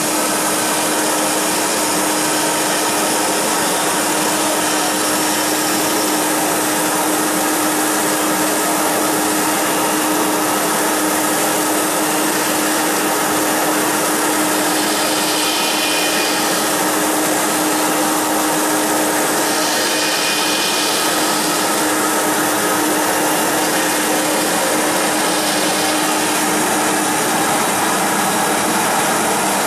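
CNC router's 9 kW HSD electric spindle running steadily at a constant pitch as a V-shaped engraving bit cuts a drawing into a board, with the vacuum hold-down pump running underneath. The cutting hiss grows brighter for a few seconds around the middle.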